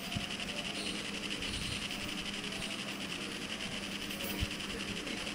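Steady electronic hiss with a faint low hum from the audio feed, broken by a soft low knock about four seconds in.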